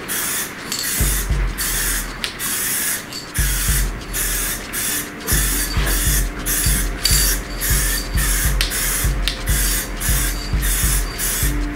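Aerosol can of Plasti Dip copper metalizer spraying in many short hissing bursts with brief pauses between them, a light first coat going onto a wheel. A low regular beat with steady tones runs underneath from about a second in.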